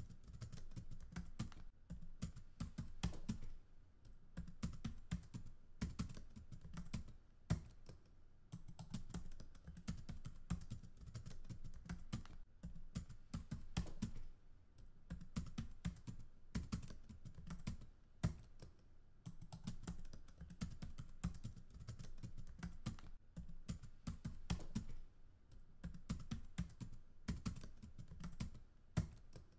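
Typing on a computer keyboard: quick runs of keystrokes with short pauses every few seconds.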